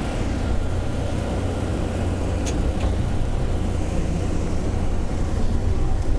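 Rubber-tyred automated airport people-mover train running through its tunnel, heard from inside the car as a steady low rumble that grows a little louder toward the end as it picks up speed. A couple of light clicks come about two and a half seconds in.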